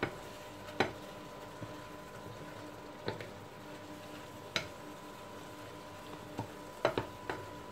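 Wooden spatulas stirring seafood and shallots in a frying pan that is faintly sizzling, with a few sharp taps of wood against the pan, most of them near the end. A faint steady hum runs underneath.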